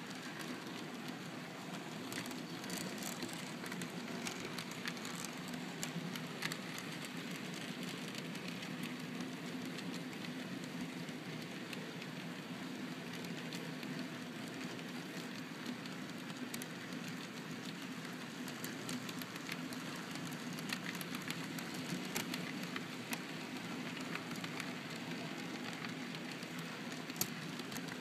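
N scale model freight train rolling past on the track: a steady rolling rumble from the wheels and running gear, with many small scattered clicks from the cars' wheels on the rails.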